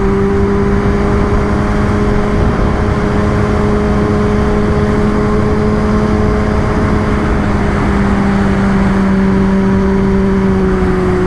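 Kawasaki ZX-10R inline-four engine pulling steadily at cruising revs, its pitch easing slightly lower near the end, over a constant hiss.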